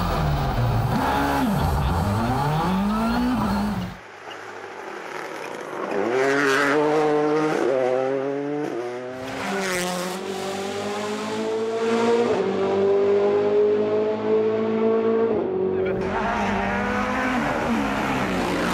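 Rally car engines at full stage pace in a few cut-together passes. In the first, the engine note drops sharply and climbs again. In the next, the engine pulls up through the gears, its pitch rising in steps, then holds a high steady note before an abrupt cut to another car.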